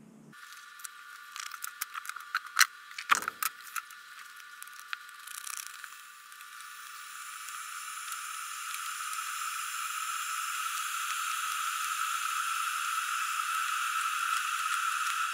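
A few sharp clicks and rattles of the hat being handled, then a steady hiss that grows gradually louder: an electric kettle heating toward the boil to make steam for reshaping a wool felt hat.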